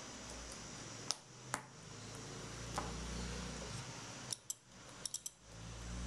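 Sharp little clicks and taps of 9-volt battery snap connectors being pressed onto battery terminals and the batteries set down: a few single clicks, then a quick run of three near the end.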